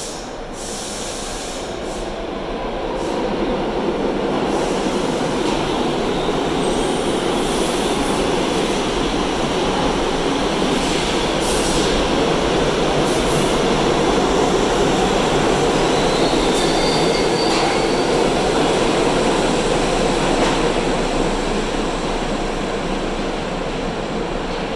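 New York City subway train pulling out of an underground station, its rumble building over the first few seconds as it gets moving and passes along the platform, then easing off as the last cars leave. A few sharp clicks and a brief high wheel squeal come through the noise partway along.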